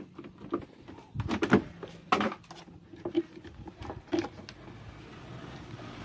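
Handling noises from washing-machine wiring and plastic parts: a few separate clicks and knocks as wire connectors are pushed back onto a switch's terminals, over a faint steady low hum.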